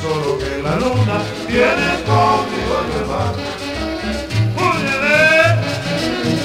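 Tropical Latin dance music played from a 33 rpm vinyl record: a gliding melodic lead over a bass that pulses about once a second.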